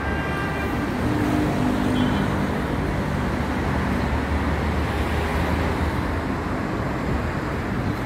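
Steady city street traffic noise: road vehicles running, with a low engine hum.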